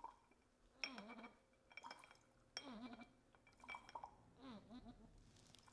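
Faint squeeze bottle of a hanging-plant waterer pumped about five times, roughly once a second: each squeeze sends a short gurgle of water out of its long tube into a drinking glass, with small glass clinks. Each squeeze gives only a trickle of water.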